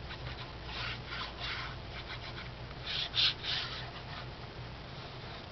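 Paper rubbing and rustling as a glued cardstock flap is set in place and pressed down by hand: a few soft strokes, the loudest about three seconds in.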